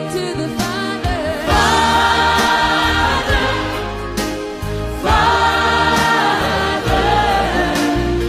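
Gospel worship music: a choir singing long held chords over a steady bass, with new phrases coming in about a second and a half in and again about five seconds in.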